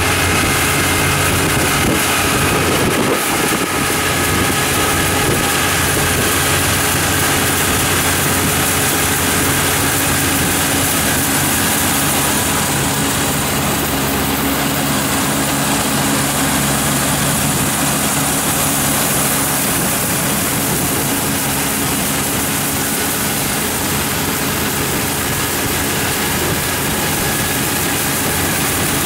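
Kubota ER447 combine harvester running steadily as it cuts and threshes ripe rice. The engine and machinery make a constant, loud drone with steady engine tones throughout.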